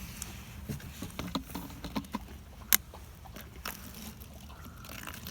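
Plastic water bottle being handled as vinegar is poured into it: scattered light clicks and taps, with one sharp click a little under halfway through, over a low steady rumble.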